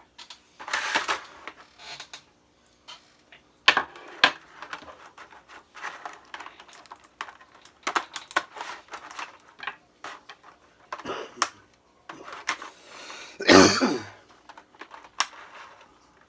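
Irregular clicks, taps and rustles of a toy's cardboard box and plastic packaging being handled and opened, with a louder burst of crackling about three-quarters of the way through.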